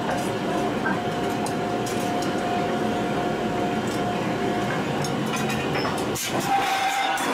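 Steady rumble of heavy forge-shop machinery with a held drone running through it. About six seconds in there is a short break and a sharp metallic knock, as a steel top tool is set onto the hot forging.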